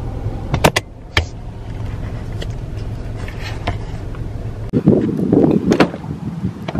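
Steady low vehicle hum with a few sharp clicks about a second in. From about five seconds in, louder rough buffeting of wind on the microphone.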